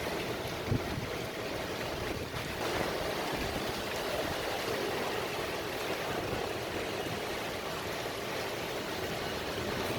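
Strong storm wind blowing in a steady rushing noise, with one brief low thump under a second in.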